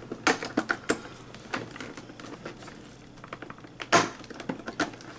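Metal tweezers clicking and scraping against cardboard inside an advent calendar compartment, a string of small taps with a louder knock about four seconds in, as a tightly packed perfume sample is worked loose.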